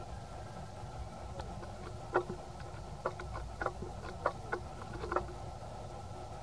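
Steady insect drone in the forest canopy. A quick, uneven run of about ten short, sharp clicks comes from about two to five seconds in.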